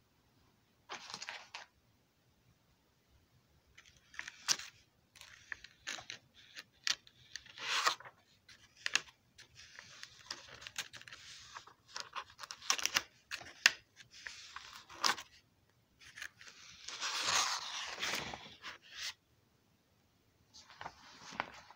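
Paper pages of a hand-drawn picture book rustling and scraping as they are handled, in short scattered bursts with a few clicks. A longer rustle about 17 seconds in, as a page is turned.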